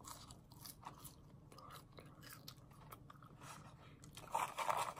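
Close-miked chewing of McDonald's fries: many small, crisp mouth clicks and crunches, growing louder near the end.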